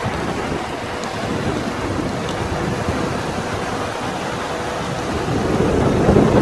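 Hurricane wind and heavy rain: a loud, steady rushing noise with a low rumble, swelling louder near the end.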